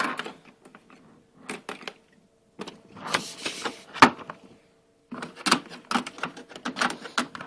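Irregular clicks, knocks and rattles of toy train cars being handled and fitted onto the track, with a short scraping rustle about three seconds in.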